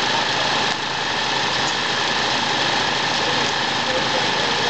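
An engine running steadily at idle, an even, unbroken drone.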